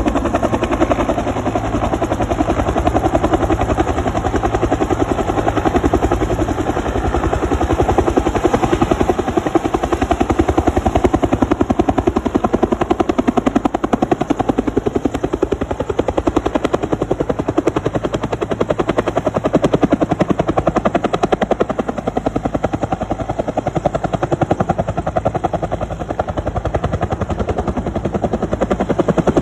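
Helicopter running with a loud, steady, rapid beat from its rotor blades.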